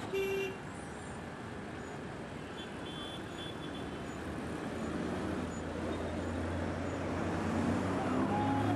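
City street traffic noise: engines of passing vehicles, with a short horn toot near the start and a low engine drone that builds from about five seconds in.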